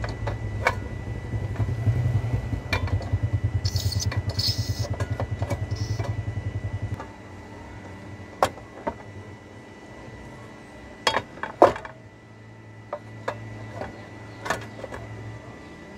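Clicks and knocks from a portable cassette gas stove being handled, with a frying pan set down on its grate about eleven seconds in, the loudest knock, with a short ring. Under them a low engine-like hum pulses rapidly and drops away about seven seconds in.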